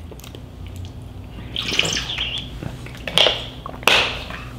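A few brief mouth and hand sounds from the man at the table after eating spicy noodles: a breathy hiss about two seconds in, then two short clicks near the end.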